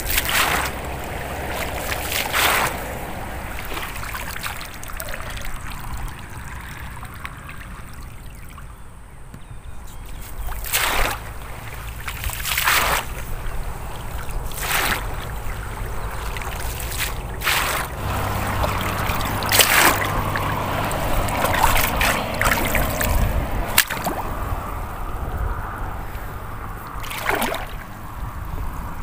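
Shallow muddy pond water sloshing and splashing as a long-handled woven basket scoop is swept through it and lifted. Water trickles out through the mesh, in repeated strokes every two or three seconds.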